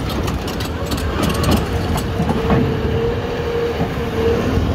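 Cat 374F LME excavator moving on its steel crawler tracks, the track links clanking over the engine's running, with a steady whine throughout.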